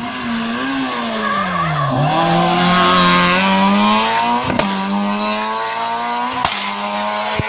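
Rally car engine running hard through a hairpin: the note drops as the car slows into the bend and passes, then climbs steadily as it accelerates away uphill, with tyres squealing briefly and two short sharp cracks later on.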